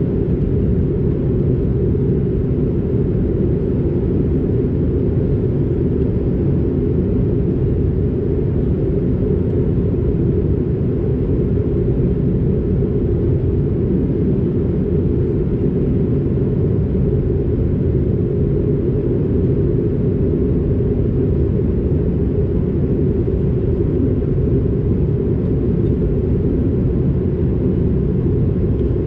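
Steady low drone of an Airbus A220-300 in flight, heard inside the passenger cabin: engine and airflow noise from its Pratt & Whitney PW1500G geared turbofans, even and unchanging.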